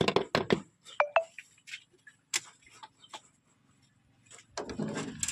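Scattered sharp clicks and knocks with two short beeps about a second in, then an engine, most likely the tractor's, starts running low and steady near the end.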